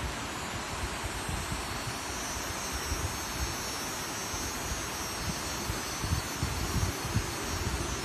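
Steady roar of falling water from a waterfall, with uneven low buffeting on the microphone.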